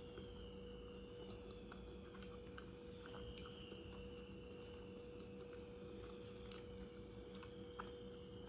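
Quiet eating by hand: chewing, with chapathi being torn and faint scattered clicks and smacks from mouth and fingers. A steady low hum lies underneath.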